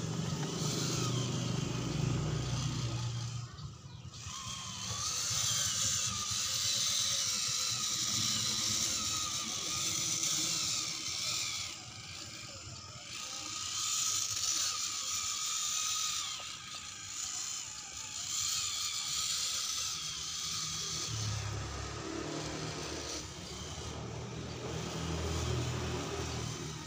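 Radio-controlled scale Jeep crawler driving over dirt and sticks, its small electric motor and gears whining and wavering in pitch with the throttle, with a lower rumble now and then.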